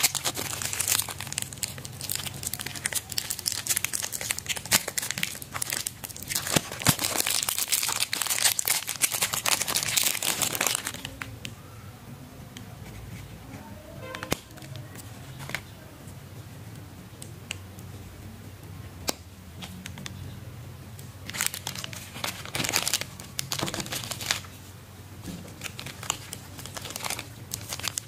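Plastic chocolate-bar wrappers crinkling and tearing as they are opened by hand, a KitKat Chunky wrapper first. Dense crinkling for the first ten seconds or so, then a quieter stretch with a few light clicks, then more bursts of crinkling about two-thirds of the way in and again near the end.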